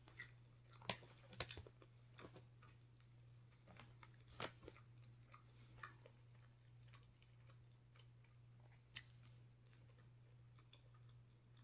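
Quiet chewing and biting of a quesadilla, with scattered sharp clicks, the loudest about a second in, near four and a half seconds and near nine seconds. A steady low hum sits underneath.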